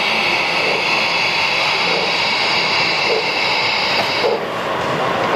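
Gauge 1 model steam locomotive hissing steam from its cylinders, a steady high hiss that cuts off about four seconds in, with soft low chuffs roughly once a second under it.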